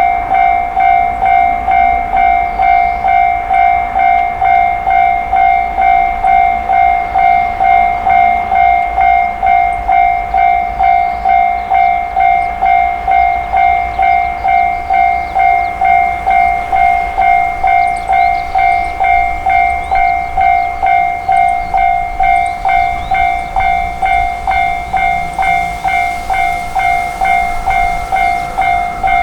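Japanese railway level-crossing warning bell ringing its electronic 'kan kan kan', an even ringing tone struck about twice a second. A second, higher-pitched tone joins near the end.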